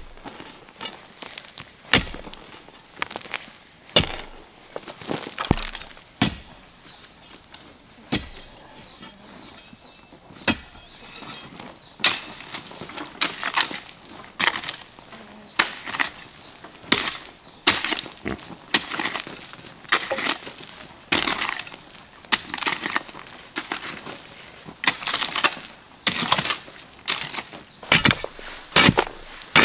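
An irregular series of sharp knocks and cracks, roughly one or two a second, some with a brief ring after them, typical of hand-tool building work.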